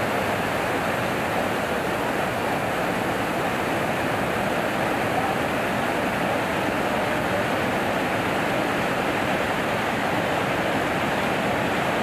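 Water pouring over a low river weir and churning in the white water below: a steady rush with no change in level.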